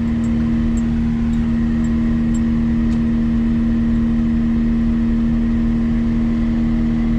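Cat 259D compact track loader's diesel engine and hydraulics running steadily at constant speed, a strong even drone with no change in pitch.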